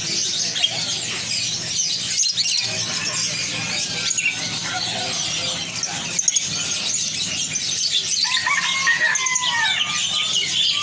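Many small birds chirping and twittering together in a dense, continuous high chatter, with a few clearer whistled calls gliding between higher and lower notes near the end.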